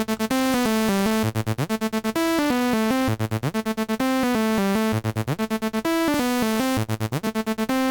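Synthesizer melody loop playing back, a stepping lead line with short runs of quick repeated notes several times, processed through a tape-emulation plugin set for saturation and compression with its emphasis switched on.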